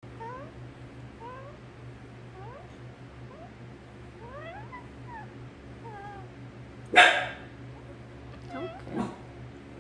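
Pet parrot making soft, short rising chirps and squeaks, with one loud harsh squawk about seven seconds in and a shorter one near nine seconds.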